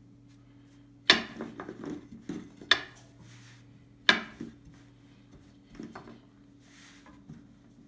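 Long thin wooden rolling pin rolling out a round of dough on a wooden table, knocking sharply against the tabletop three times (about one, two and a half, and four seconds in) with lighter clatters and rubbing between.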